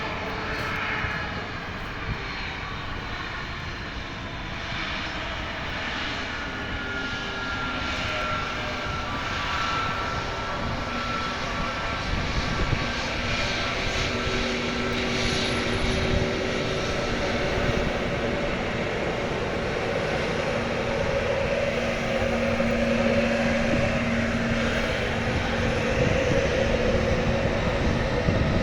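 Airbus A321neo jet engines, a continuous rush of jet noise that grows gradually louder, with faint whining tones drifting in pitch.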